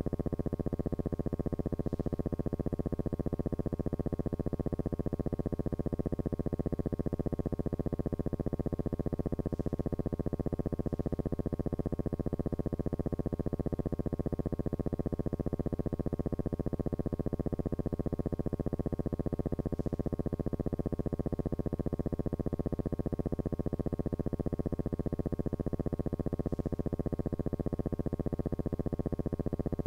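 A steady, unchanging buzzing hum made of many even pitched tones, with no breaks or changes in level.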